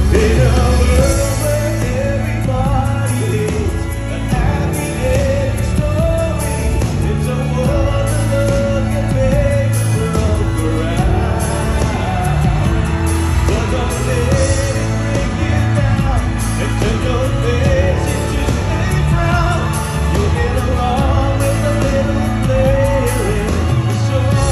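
A pop song: a singer's voice carrying a wavering melody over a band with a steady bass line.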